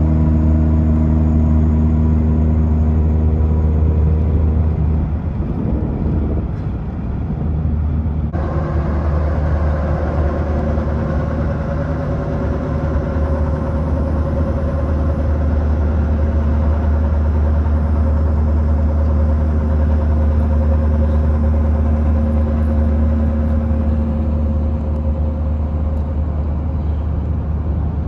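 Heavy road-vehicle engine noise: a steady low rumble with a pitched engine drone, changing abruptly about eight seconds in to a similar steady drone with a higher tone on top.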